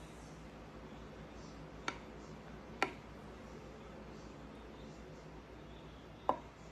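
A metal spoon spreading chocolate icing in a glass baking dish, clicking sharply against the dish three times: about two seconds in, just before three seconds, and again near the end.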